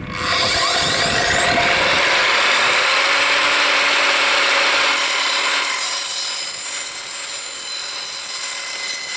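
Evolution R255SMS 10-inch sliding mitre saw: its 2000 W soft-start motor winds up with a rising whine over the first couple of seconds, then the multi-purpose blade cuts through 22 mm copper pipe with a loud, steady, harsh sawing noise.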